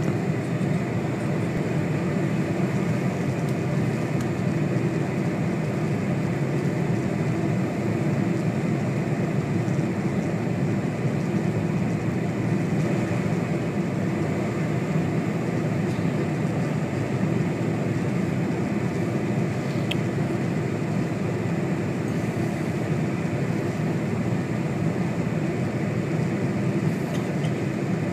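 Steady cabin noise inside a Boeing 747 descending on approach: an even drone of engines and rushing air, heaviest in the low range.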